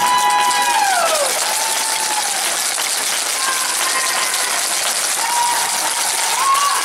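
Spectators in an ice rink shouting long drawn-out calls, a strong one at the start and another near the end, over a steady wash of crowd and skating noise.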